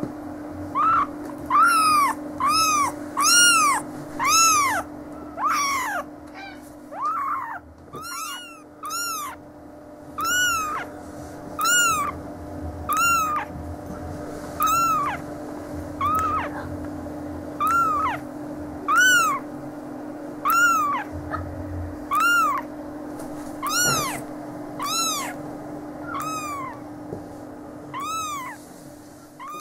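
Eleven-day-old Siamese and Oriental kittens mewing: short, high-pitched cries that rise and fall, repeated about once a second, over a steady low hum.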